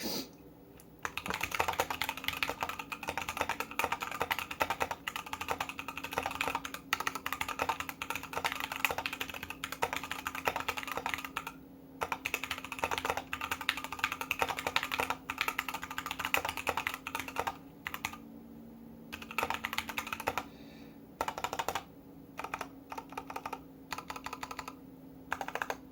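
Typing on a KBD75v2 mechanical keyboard with stock, unlubed Everglide Oreo switches, lubed stabilizers, an aluminum plate and PBT keycaps: a fast run of key clicks, with a brief break about halfway and a few longer pauses in the second half.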